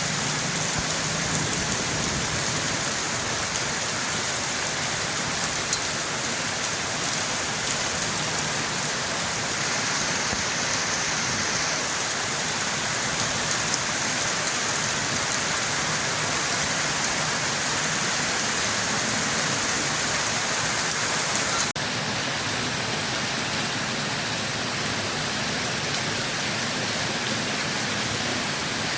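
Steady rain falling as a dense, even hiss. About three-quarters of the way through there is a sudden brief break, a splice in the loop, after which the hiss carries on more smoothly.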